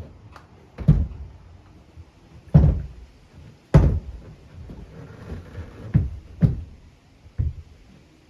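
Six dull thuds at irregular intervals, strongest in the low end.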